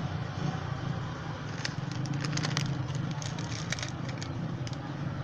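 Scattered sharp crinkles and crackles of a foil seasoning sachet being handled and torn open, over a steady low hum.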